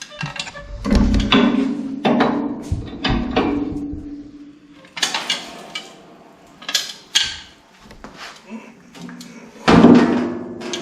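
Heavy metal clanks and knocks, several ringing briefly, as the 6.0L LS engine is rolled over upside down on its engine stand. The loudest clank comes near the end.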